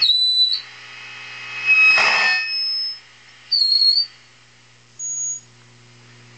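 High-gain tube amp squealing with feedback: several short, high-pitched whistles that start and stop, the loudest about two seconds in, over a steady mains hum. This is feedback from the power tubes into the preamp tubes, apparently travelling through the tubes' glass envelopes above the chassis.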